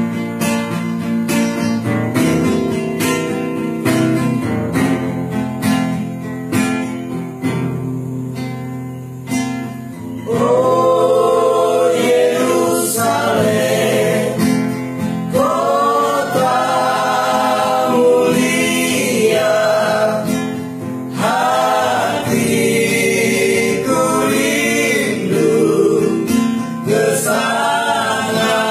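Male vocal group singing a gospel song in several-part harmony to a strummed acoustic guitar; the voices swell louder and fuller about ten seconds in.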